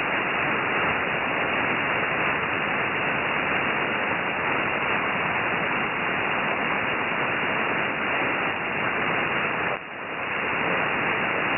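Shortwave static heard through a receiver in upper-sideband mode on an open HF aeronautical channel between transmissions: a steady, narrow-band hiss with no voice. It dips briefly about ten seconds in.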